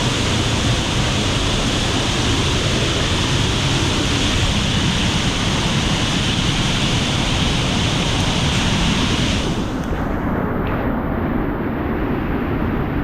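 Loud, steady roar of a waterfall's rushing, crashing water. About nine and a half seconds in, the bright hiss drops away abruptly, leaving a duller roar.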